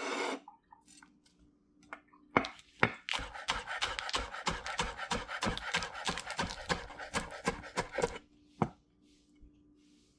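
Chef's knife chopping celery stalks on a wooden cutting board: two single cuts, then a run of quick strokes, several a second, for about five seconds, and one last cut.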